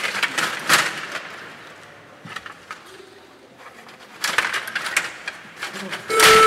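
STIGA rod table hockey in play: clusters of sharp clacks and knocks from the puck and plastic players striking each other and the rink, with quieter stretches between. Just before the end a steady pitched tone begins.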